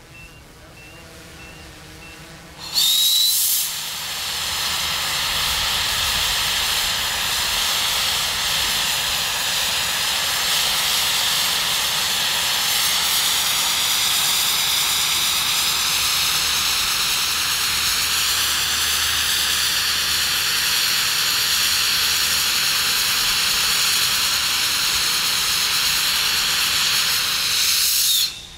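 Pressurized gas venting straight up into the air as a white vapour plume: a loud, steady hiss with a faint whistle in it. It starts suddenly a few seconds in with a brief louder burst and cuts off suddenly near the end. Before it starts, a hovering drone's rotors hum faintly.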